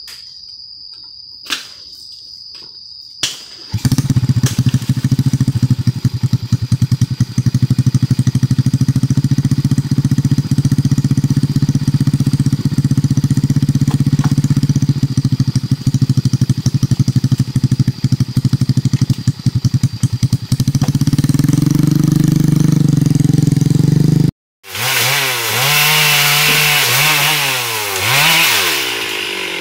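A small engine starts about four seconds in and runs steadily, its pitch rising near the end. After a short break, a chainsaw revs up and down as it cuts through teak wood.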